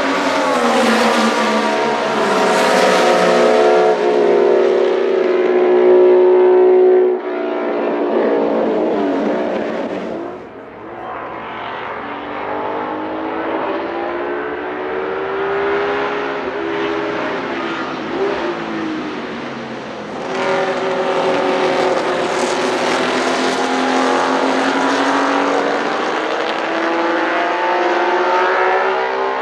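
Ferrari 156 F1 'Sharknose' replica's 1.5-litre V6 racing engine at high revs as the car laps the track, its pitch rising under acceleration and falling off between pulls. The sound drops suddenly about seven seconds in and is quieter for a moment around ten seconds, then climbs again through the second half.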